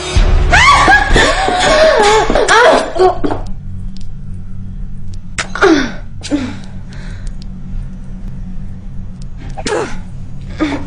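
A woman screaming loudly for about three seconds, then crying out four more times in short cries that fall in pitch, cries of distress as she is attacked. A low steady hum runs underneath.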